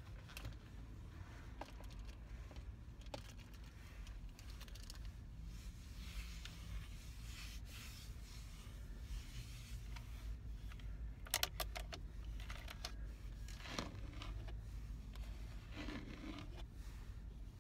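Long fingernails tapping and scratching on the hub of a Nissan steering wheel. Soft, scattered scrapes and taps, with a quick run of sharp clicks a little past the middle.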